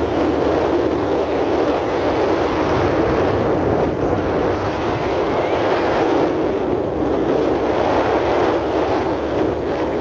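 Steady, even rushing noise with no speech, of the kind made by wind buffeting the microphone.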